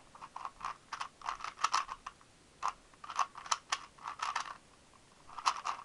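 Rubik's speed cube being turned fast during a solve: bursts of quick plastic clicks from the layer turns, broken by two short pauses.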